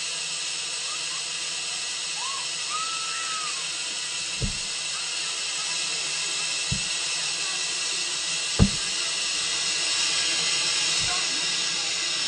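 Ryko Soft Gloss Maxx 2 car wash spraying water onto a car, a steady hiss. Three dull thumps break through, the last and loudest about eight and a half seconds in.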